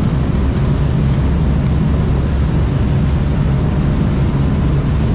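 Passenger ferry's engines running with a steady low drone over a broad rushing noise.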